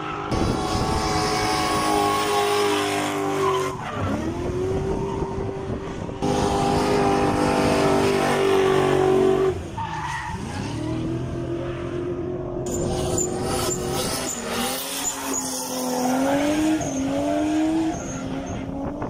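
A drift car's engine revving hard at high rpm, its pitch rising and falling as the throttle is worked, with the hiss and squeal of tyres sliding sideways and spinning.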